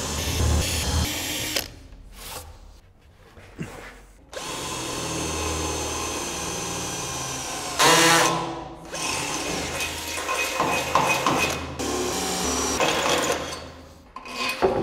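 Cordless drill with a standard twist bit boring bolt holes through a plywood top and the steel rack beam under it. It runs in several bursts with short pauses, the longest and steadiest in the middle, with a brief loud burst about eight seconds in.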